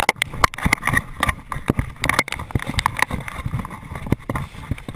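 Running footsteps crunching over a stony, gravelly shore, with the hand-held camera jostling: rapid, irregular thumps and clatter.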